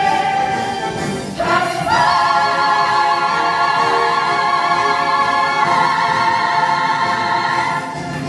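Stage musical cast and chorus singing in full voice. They climb about a second and a half in to a long held chord, which shifts once and is held until just before the end.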